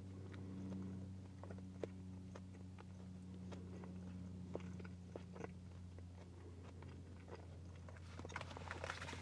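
A person quietly chewing and biting food, with scattered small clicks and a denser patch of crackling near the end, over a steady low hum.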